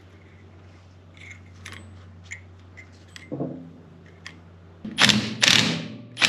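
Small metal clicks and clinks as the steering-wheel parts are handled. Then, near the end, a Milwaukee Fuel cordless power tool runs in two loud bursts, driving down the steering-wheel retaining nut.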